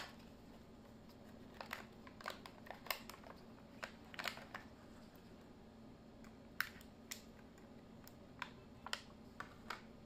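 A cardboard box being opened and a car charger unwrapped from its plastic bag by gloved hands: scattered short crinkles, taps and clicks, irregular and faint.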